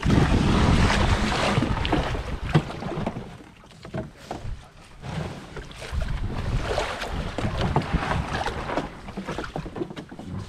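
Wind buffeting the microphone in uneven gusts, strongest in the first few seconds, under scattered knocks, scrapes and rope rustles as two canoes are lashed together, with footsteps on gravel.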